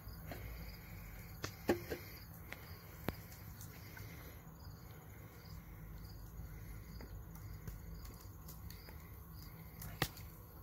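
Crickets chirping in an even, repeating rhythm over a faint low hum, with a few sharp clicks, the loudest about ten seconds in.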